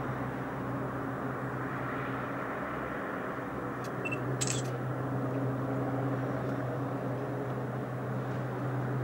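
Distant RAF Sea King search-and-rescue helicopter hovering, heard as a steady low drone. About four seconds in, a short high beep and a couple of sharp camera clicks.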